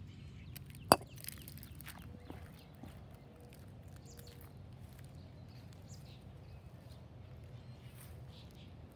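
A single sharp clink about a second in as a glass bottle is set down on a concrete sidewalk, followed by quiet outdoor background with a low steady rumble and faint scattered ticks.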